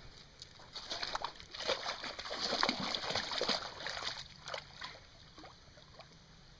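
A dog wading into a shallow pool, water sloshing and splashing irregularly around its legs, dying down after about four seconds as it starts to swim.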